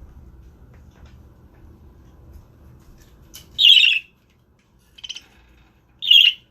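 Budgerigars giving three short, loud, scratchy calls, about half a second apart from each other in a loose series, with the middle one weaker; a faint low hum underneath before the first call.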